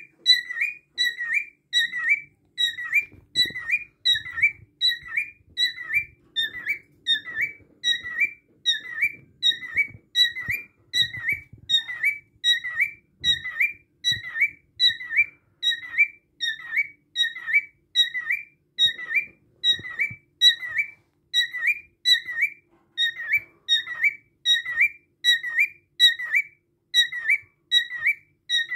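Cockatiel calling over and over: a short, high whistled chirp with an upward flick at the end, repeated very evenly about twice a second.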